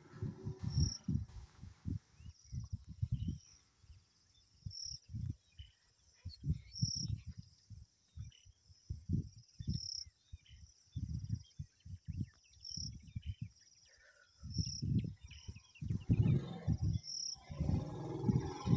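Insects chirping: a steady high trill, with a short chirp about once a second, under irregular low muffled bumps and rumbles.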